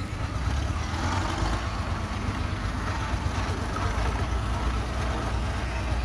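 Old tractor engine running steadily.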